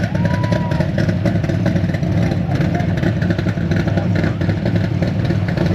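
Cobra roadster's V8 engine idling, loud and steady.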